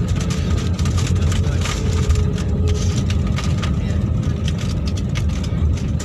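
Airbus A320-family airliner heard from inside the cabin during the landing roll, ground spoilers raised: a loud steady low rumble of the engines and wheels on the runway as the aircraft slows, with frequent short rattles.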